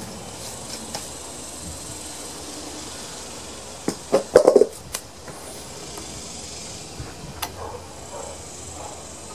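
A short clatter of several sharp knocks about four seconds in, then a few lighter taps near the end: mower drive parts being handled while the rear-wheel drive is reassembled. A steady high hiss runs underneath.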